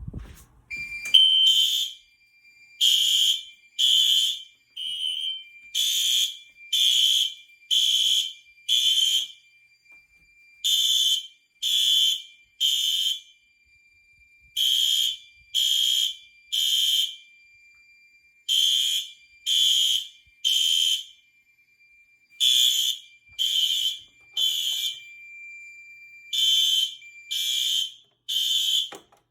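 Fire alarm horn strobes, synchronised by System Sensor Sync, sounding the temporal code-3 evacuation pattern: three short blasts, a pause, then three more, repeating about every four seconds. This is the system in alarm after a pull station has been pulled. A faint steady high tone runs beneath the horns and stops shortly before the end.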